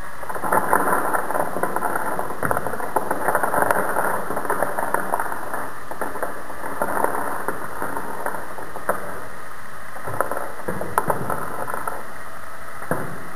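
Motor-driven Lego rubber-band minigun firing in rapid succession. A dense crackling clatter of rubber bands snapping free and small wooden blocks toppling onto a tabletop swells and eases in several bursts.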